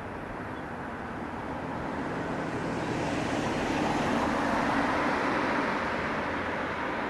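JR 313-series electric train running past at close range. Its rolling noise swells to a peak about four to five seconds in, with a steady low hum at the loudest part, then eases slightly.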